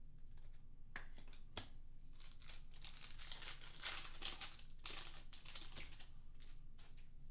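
A trading card pack's foil wrapper being torn open and crinkled, a dense spell of crackling in the middle, after a couple of sharp clicks.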